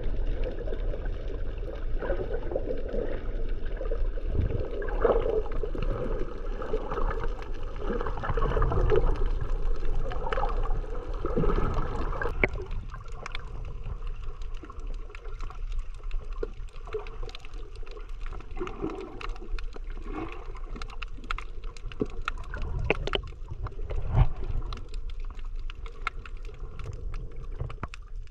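Underwater sound picked up by a camera held below the surface: muffled water sloshing and gurgling over a steady low rumble. About halfway through, the sloshing eases and a fine crackle of many small clicks takes over.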